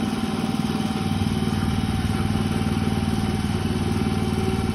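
Small gasoline engine running at a steady speed, with an even hum and a fixed higher tone.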